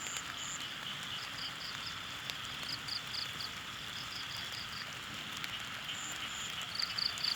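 Steady rain hiss with high insect chirps repeating in short groups of three to five pulses.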